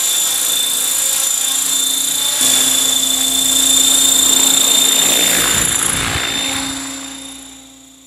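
Blade 500 3D electric RC helicopter in flight: the steady high whine of its motor and drivetrain over the rush of the rotor blades. It fades out near the end.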